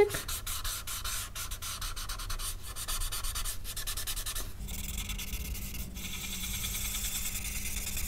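Blending stick rubbing over graphite shading on drawing paper to smudge it: quick scratchy strokes at first, then a steadier continuous rubbing from about halfway.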